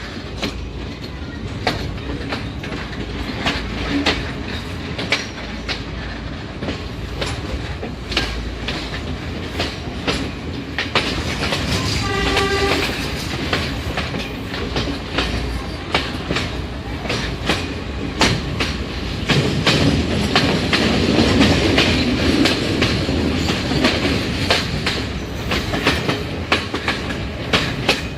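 A passenger train running along the line, heard from on board, its wheels clicking over the rail joints. About twelve seconds in, the train's horn sounds briefly.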